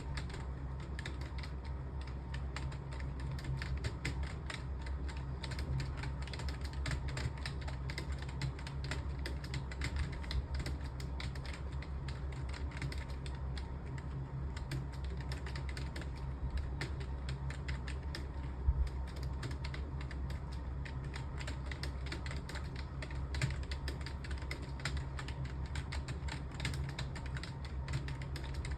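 Fast, continuous typing on a computer keyboard: a dense run of key clicks several times a second, over a steady low hum. There is one louder knock about two-thirds of the way through.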